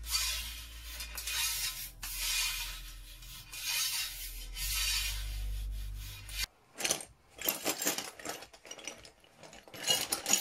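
About four long rasping scrubbing strokes on the rusty steel barrel and action of a Chassepot M1866 rifle, over a low steady hum. About six and a half seconds in they stop, and small steel gun parts clatter and knock in a plastic tub, loudest near the end.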